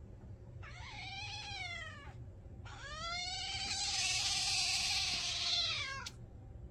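Domestic cat giving two drawn-out meows: a first of about a second and a half, then a longer, louder yowl of over three seconds that rises, holds and falls away at the end.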